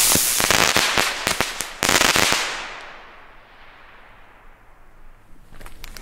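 Funke Feuerfalke flying firework spinners going off with dense crackling. After about two and a half seconds the crackle thins into a fading hiss, with a few last crackles near the end.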